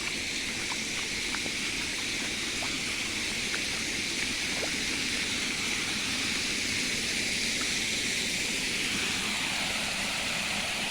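Fast-running floodwater with a steady, even rush and a few faint small splashes, the sound of a stream or small waterfall swollen by flooding.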